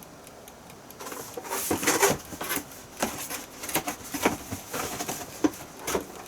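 Russell Hobbs three-tier electric food steamer at work: its boiling water bubbles and spits in irregular pops and crackles over a high hiss, starting about a second in.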